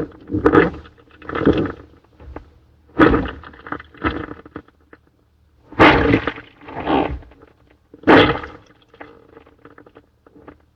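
Synthetic sea-monster call for a plesiosaur, layered from film-monster and blue whale sounds: a run of short, deep calls about a second apart, loudest about three, six and eight seconds in, and dying away to a few faint ones near the end.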